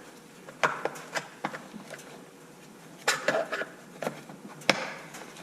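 Sharp clicks and knocks of a flathead screwdriver working at a tightly clipped-on cover on an RC truck's rear end, with a short scraping rattle a little past halfway and one more sharp click near the end.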